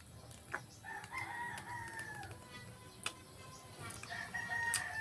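A rooster crowing twice, each crow a held call that sags in pitch at its end; the first comes about a second in and the second near the end. A few sharp clicks of eating sound over it.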